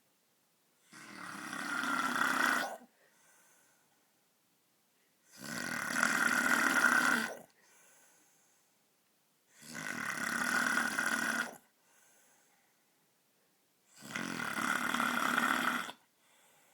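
A man snoring loudly in his sleep: four long snores, each about two seconds, coming about every four seconds, with a faint short sound after each.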